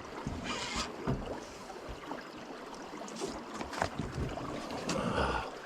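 Wind and water noise aboard a small fishing boat, with a few scattered knocks.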